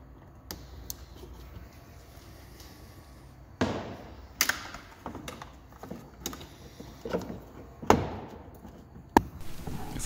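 Plastic trim parts of a BMW i3's charging port being handled and worked loose by hand. It is faint for the first few seconds, then comes a series of separate knocks and clicks, roughly one a second, with the loudest about 8 s in and a sharp plastic click just after 9 s.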